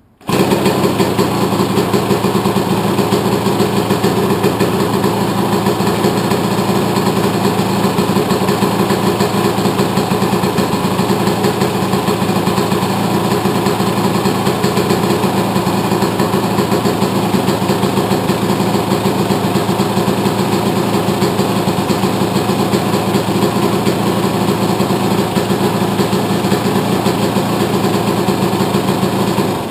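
Freshly rebuilt Yamaha YZ125 single-cylinder two-stroke dirt bike engine catching on the kick start and running steadily at idle, then shut off at the very end: its first start after the rebuild.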